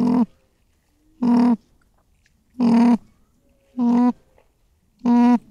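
An animal call: a short, steady-pitched cry repeated five times at even intervals of about a second and a quarter.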